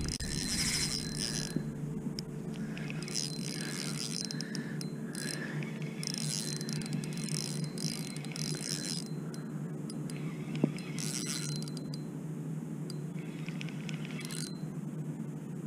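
Spinning reel cranked in several spells of one to three seconds while playing a hooked fish, its gears whirring and clicking, over a steady low hum. One short knock about ten seconds in.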